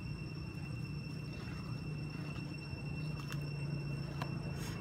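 Steady low hum with a thin, steady high whine over it, and a few faint light clicks.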